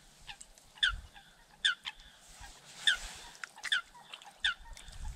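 A bird calling over and over: short, falling notes, about one a second.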